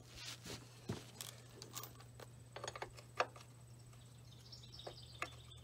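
Faint scattered metal clicks and taps of a wrench being fitted to a Farmall C's oil-pan drain plug, whose head is rounded off, with a short run of quick clicks about halfway through.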